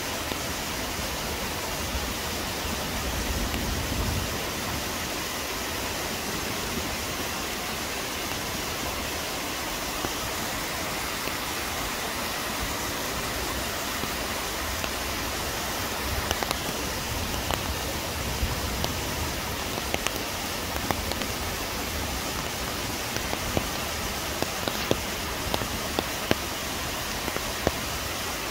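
Chilyeon Falls pouring steadily, a constant rushing noise. There is a brief low rumble about three seconds in. From about halfway, scattered sharp ticks of raindrops striking close by are heard.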